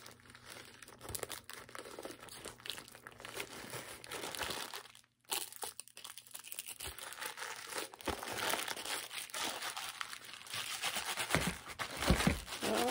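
Plastic zip-top bag filled with shaving cream crinkling as hands press its zipper shut and then squeeze it. The crackling is irregular, breaks off briefly about five seconds in, and grows louder near the end.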